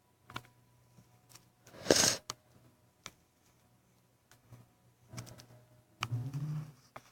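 One sneeze about two seconds in: a short, sharp burst of breath noise from someone who has a cold. A few light clicks are scattered around it, and a brief voiced throat sound comes near the end.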